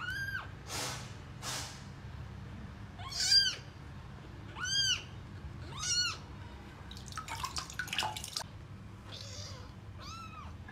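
A young kitten meowing while being bathed: about five short, high-pitched cries, each rising and falling, a second or more apart. A couple of breathy calls follow the first cry, and a spell of crackling handling noise comes between the fourth and fifth.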